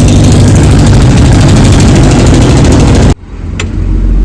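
A loud engine running close by with a fast, even pulse. About three seconds in it cuts off abruptly, leaving a low rumble.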